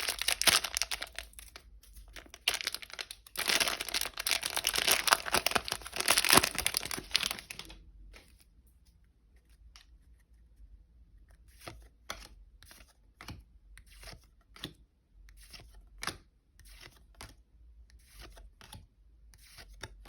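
A trading-card pack wrapper crinkled and torn open in two loud spells over the first eight seconds. Then the cards are flicked through one at a time, making quiet sharp snaps about a second apart.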